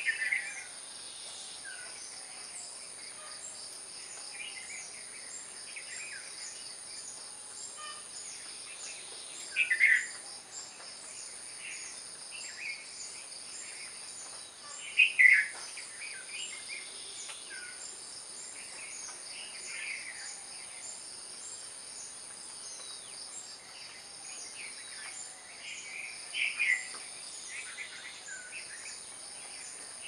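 Short bird calls every few seconds, the loudest about a third and halfway through, over a steady high-pitched insect chorus.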